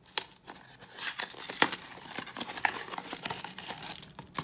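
A cardboard trading-card hanger box being torn open at its end flap and the cellophane-wrapped pack inside pulled out: tearing cardboard and crinkling wrapper with scattered sharp snaps, the loudest about one and a half seconds in.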